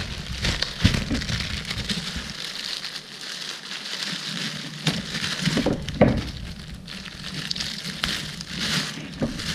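Thin clear plastic bag crinkling and rustling as paper manuals and booklets are slid out of it, with a few sharper crackles.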